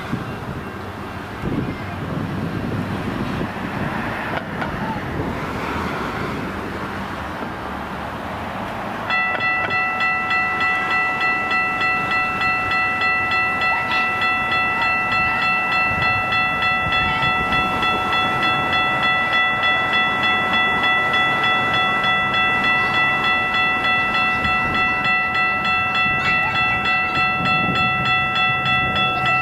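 Railroad grade-crossing warning bell that starts ringing suddenly about nine seconds in and keeps ringing in a fast, even rhythm, signalling an approaching train. Before it starts, wind noise on the microphone.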